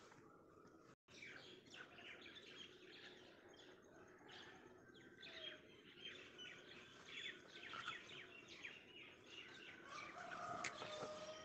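Faint chorus of small birds chirping, many short quick chirps overlapping. The sound briefly drops out about a second in.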